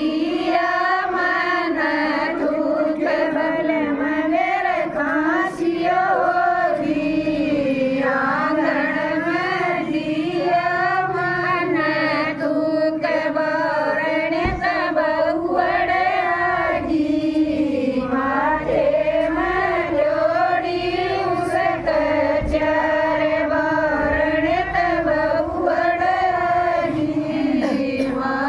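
Women singing a Hindu devotional bhajan together in unison, one continuous wavering melody line with only brief breaths between phrases.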